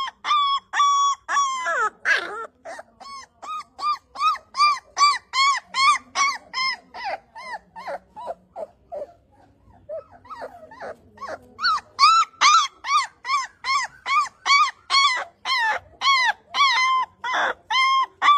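A puppy whining: a long string of short, high whimpers that each rise and fall in pitch, about two or three a second. The whines grow faint and scattered about halfway through, then come back strongly.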